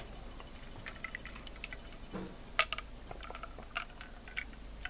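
A glass of iced drink tipped up and drunk from: a few faint, sharp clinks of ice cubes against the glass, the clearest about two and a half seconds in, with soft liquid sounds.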